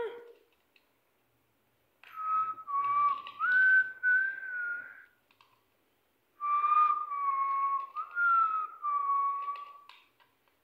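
Whistling, in two stretches of about three seconds each, the first starting about two seconds in; each holds a steady note that steps up and down in pitch a few times.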